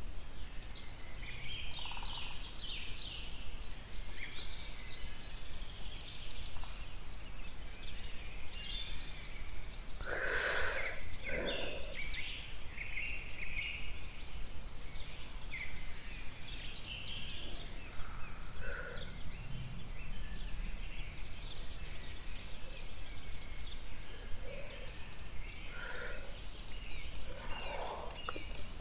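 Steady background hiss with scattered faint, short bird chirps and a thin steady high whine. About ten seconds in comes a louder call lasting a second or two.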